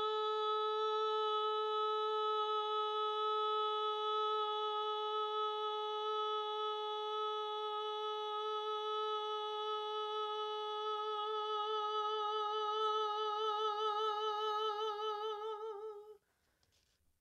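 A woman's voice holding one long sung tone near A4. It is straight at first; about two-thirds of the way through, a vibrato emerges and its waver grows wider until the tone stops near the end. This is the long-tone exercise, in which vibrato appears as breath flow and pressure come into balance.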